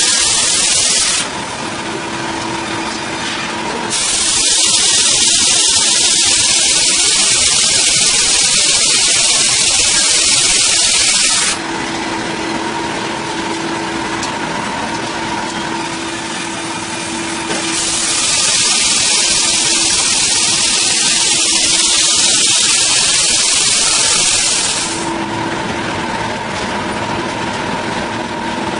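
Power saw running steadily on wood, with two long stretches of loud hissing cutting noise, each about seven seconds, as the blade goes through the timber.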